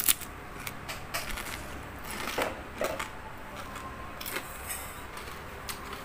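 Crunching of crispy breaded deep-fried frog being bitten and chewed close to the microphone: a loud crunch at the first bite, then scattered sharp crunches as it is chewed.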